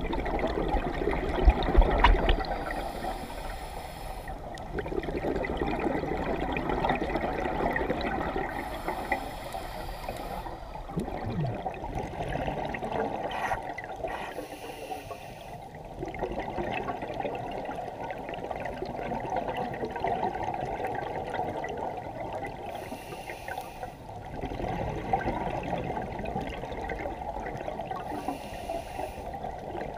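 Underwater sound of scuba breathing: exhaled bubbles gurgling and rumbling in swells every several seconds, with short hissing regulator breaths between them.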